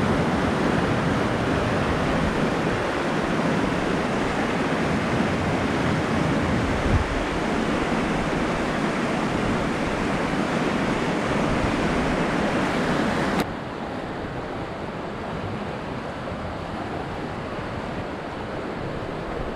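Pecos River rapids rushing, a steady noisy roar of whitewater over rocks, with a brief thump about seven seconds in. About thirteen seconds in it cuts abruptly to a quieter, duller rush.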